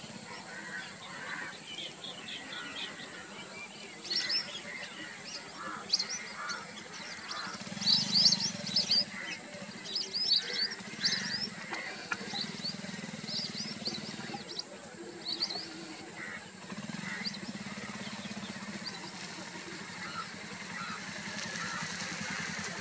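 Many wild birds calling over each other, with quick high chirps and scattered lower calls, busiest about a third of the way in.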